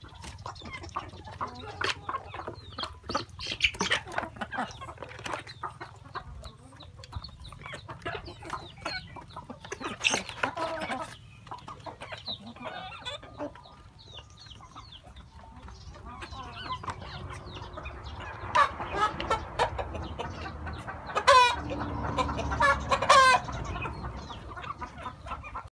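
Flock of hens and roosters clucking while they peck at coconut halves and grain, with a steady patter of sharp peck taps. A few louder calls ring out in the last third.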